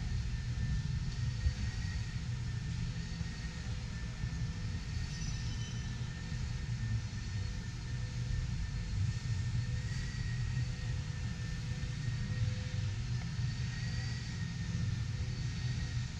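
Steady low rumble with faint steady whines above it: the background noise of a large exhibition hall.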